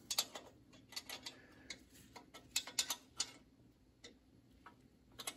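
Irregular light metallic clicks of a wrench working the belt adjuster bolt, snugging it up to tension the motor's toothed drive belt, some clicks coming in quick clusters.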